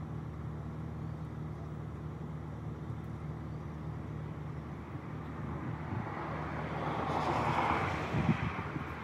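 An engine idling steadily. From about six seconds in, a passing car's road noise swells and fades, with a brief thump near the end.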